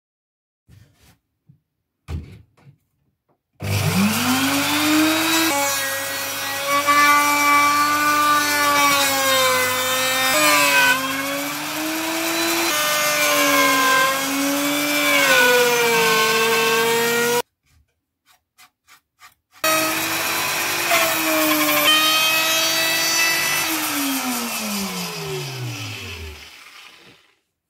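Hand-held electric plunge router starting up with a quickly rising whine and cutting into wood, its pitch dipping and recovering as the bit loads in the cut. The sound breaks off suddenly midway and resumes a couple of seconds later, then near the end the motor winds down with a long falling whine after being switched off.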